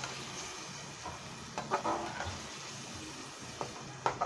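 Slotted steel spoon stirring boiled potato chunks through watery tamarind masala in a steel kadai, a wet, sloshing stir. A few scrapes and clinks of the spoon against the pan about midway and near the end.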